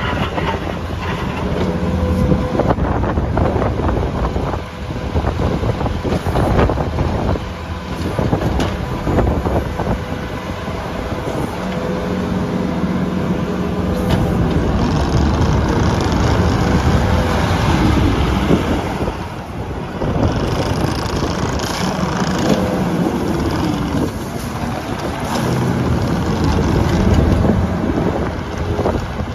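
Case TV370B loader's 74 hp FPT diesel engine running, its pitch and level rising and falling as it is revved and worked, with knocks and clanks from the machine during the first part.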